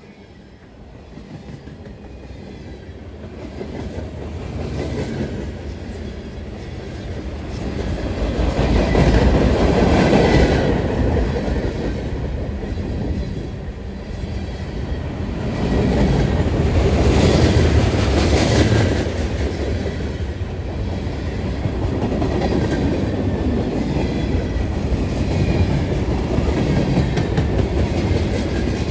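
CSX CM44AC diesel locomotive leading a freight train past: its rumble builds from the start and is loudest about nine to ten seconds in. It swells again around seventeen seconds, then the freight cars roll past with a steady clickety-clack of wheels on the rails.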